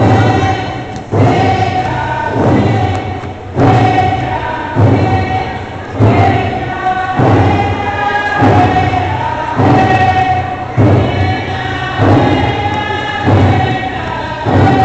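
First Nations dance group singing together over a slow, steady drum beat, about one stroke every 1.2 seconds.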